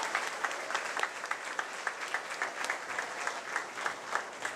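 Audience applauding, with sharp, close claps about three or four a second standing out above the spread of clapping.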